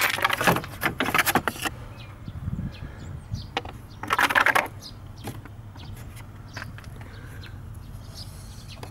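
Hand tools and small metal parts clinking and rattling in rapid runs of clicks, one at the start lasting under two seconds and a shorter one about four seconds in, with a few light ticks between.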